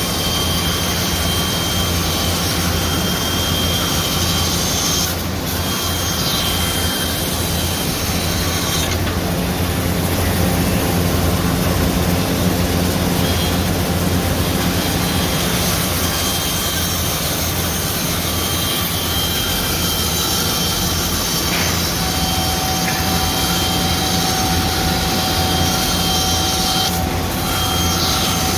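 CNC profile band saw running and cutting wood: a loud, steady machine noise with a low hum. A steadier mid-pitched tone joins about two-thirds of the way in.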